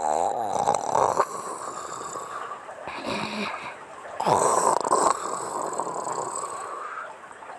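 A woman snoring in her sleep: a few rough snoring breaths with gaps between them, the loudest at the start and again past the middle.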